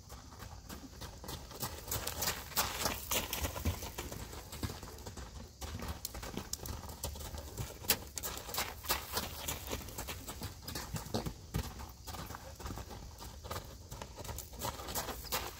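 A horse's hoofbeats on a gravel and dirt lunging ring as it circles at a brisk pace on the lunge line, louder as it passes close by.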